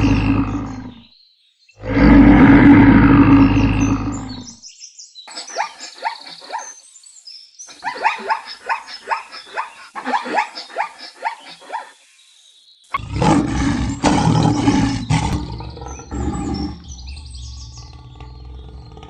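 A big cat (panther) roaring: two loud roars, then a run of rapid short calls from another clip, then a long growling roar near the end.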